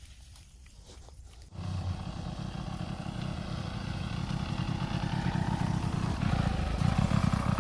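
Motorcycle engine running, starting suddenly about a second and a half in and growing steadily louder.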